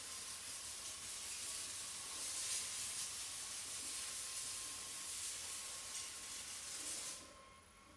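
A steady, high hiss with a faint steady whine under it, cutting off about seven seconds in.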